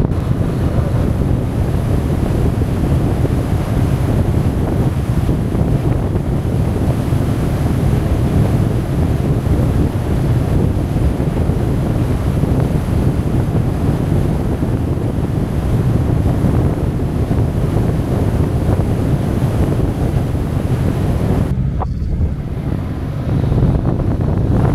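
Steady wind buffeting on the microphone of a camera moving along a road, a dense low rumble; it eases briefly a few seconds before the end.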